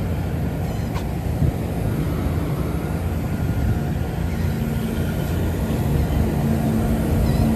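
Steady low machinery drone and rumble, with a steady hum joining in about six seconds in.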